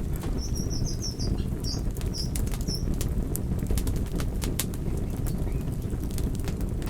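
Wood fire crackling, with frequent sharp pops over a steady low rumble. A quick run of high chirps sounds from about half a second in to about three seconds in.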